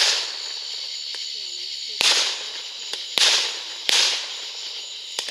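Fireworks going off: about five sharp bangs at uneven intervals, each trailing off in a brief hiss.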